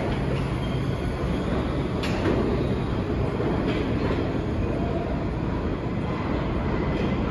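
New York City subway train pulling out and rolling away into the tunnel: a steady rumble with a few clacks from the wheels over the rail joints.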